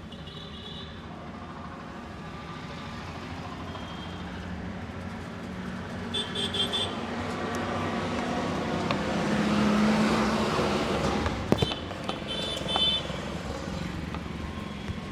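Street traffic: a motor vehicle passes close by, its noise swelling to a peak about two-thirds of the way in and then fading. Two short groups of high beeps and a single sharp click sound over it.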